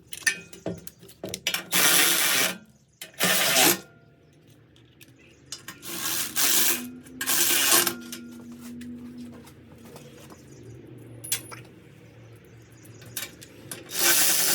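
Bolts being tightened with a ratchet wrench: short runs of rapid ratchet clicking, several strokes a few seconds apart, with odd clinks of metal in between.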